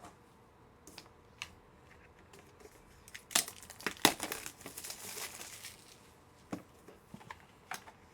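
Trading-card packaging being handled and opened: crinkling and rustling, with a few sharp clicks and taps, the loudest two a little before the middle.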